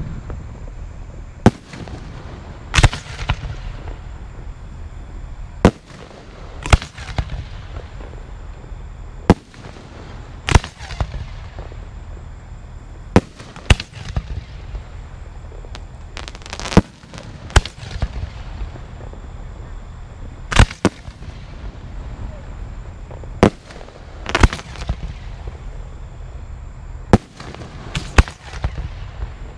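Aerial firework shells bursting overhead, a sharp bang every one to three seconds, each trailing off in a short rumble.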